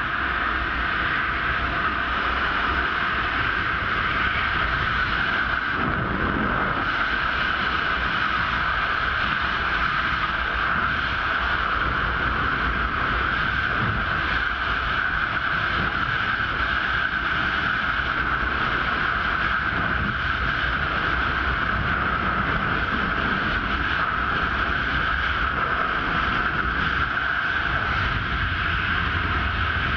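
Freefall airflow rushing over a GoPro's microphone during a skydive: a steady, loud rush of wind noise with no letup.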